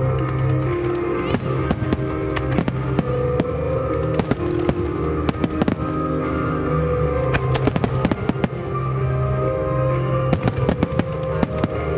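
Starmine aerial fireworks shells bursting, sharp reports coming in several quick clusters over loud music with sustained notes and a steady bass.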